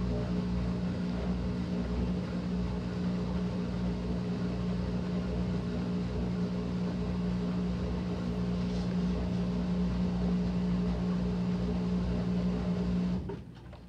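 Maytag top-load washer spinning its stainless tub, a steady motor hum with a constant low tone. The hum drops off abruptly near the end.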